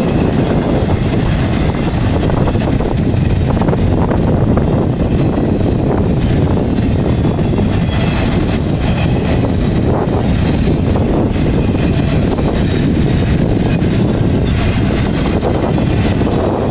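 Double-stack intermodal freight train's well cars rolling past close by: a steady, loud rumble of steel wheels on rail.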